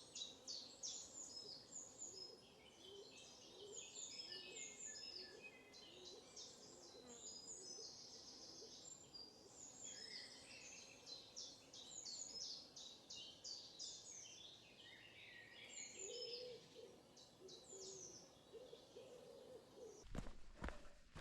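Several birds singing at once: a dense, overlapping chorus of high chirps and trills with softer lower notes underneath. Footsteps begin near the end.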